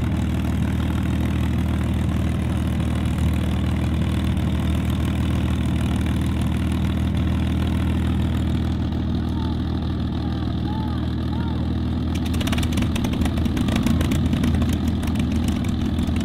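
Packard Merlin V12 of a CAC Mustang idling steadily on the ground. About twelve seconds in, a crackling, popping exhaust note joins it as a second Mustang's Merlin runs up.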